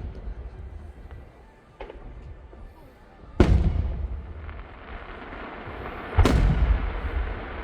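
Aerial fireworks shells bursting: a faint boom near two seconds in, then two loud booms about three seconds apart. A steady rushing noise fills the gaps from the second loud boom on.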